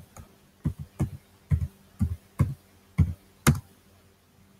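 Slow typing on a computer keyboard: about seven single keystrokes, each a low thud, roughly two a second. The last and sharpest comes about three and a half seconds in, as the Enter key sends the chat message.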